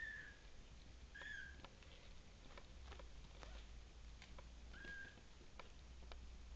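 Newborn Russian Blue kittens mewing: three faint, short, high mews, the first right at the start, the next about a second later and the last about five seconds in. Light ticks and rustles come from the kittens shifting in their bedding.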